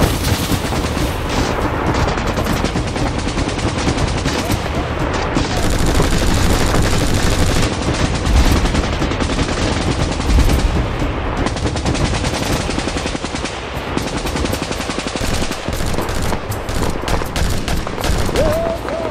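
Battle gunfire: dense, continuous automatic fire of overlapping shots, with heavy low booms in the middle. The shots thin out to scattered fire near the end.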